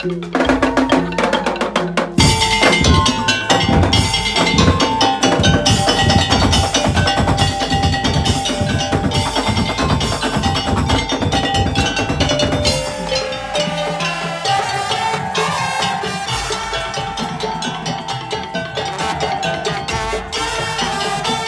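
Madurese tong-tong percussion ensemble playing: fast, dense drumming with wooden percussion under a melody line. The full drumming comes in about two seconds in and eases back about halfway through.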